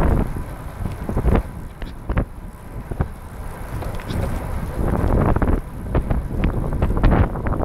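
Wind buffeting the microphone of a camera riding on a recumbent trike at speed: a low, rushing roar with irregular gusts and sharp pops.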